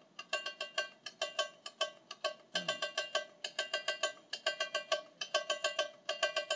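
Tamborim struck with a stick, sharp ringing strokes in quick clusters making an uneven samba variation pattern.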